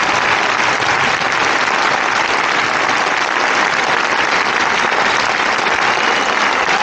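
A huge crowd of tens of thousands applauding: dense, steady clapping that holds without a break.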